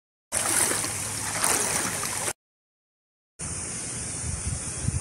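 Floodwater sloshing and swishing as someone wades through it. The sound drops to dead silence for about a second midway.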